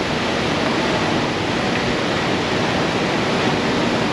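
Steady, loud rushing noise with no distinct knocks or changes, like a large fan or air mover running close by.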